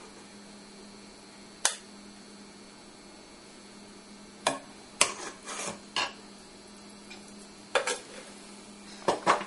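Metal kitchen tongs clinking against the pressure cooker pan and the grinder jar as spice paste is scraped in: scattered sharp clinks, a quick cluster about five to six seconds in and another near the end, over a faint steady hum.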